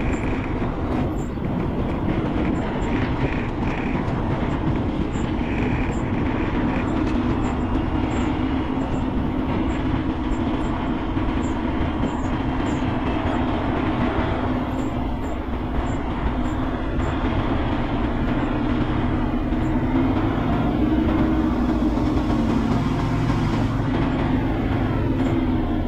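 Loaded heavy truck driving, heard from inside the cab: a steady engine and road rumble that grows a little louder in the second half.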